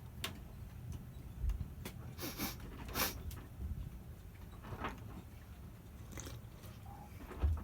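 Mouth sounds of a person chewing and smacking over a mouthful of bird's nest drink: scattered short wet clicks and smacks, a few with brief squeaky sweeps.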